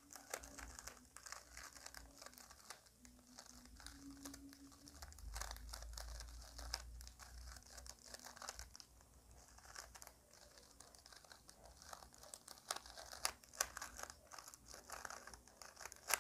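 3x3 plastic speed cube being turned quickly in the hands to scramble it: a faint, continuous run of light clicks and clacks as the layers turn and snap into place.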